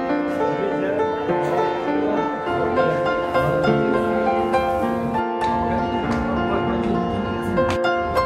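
Background music: a slow, gentle instrumental of long held notes that change every second or so.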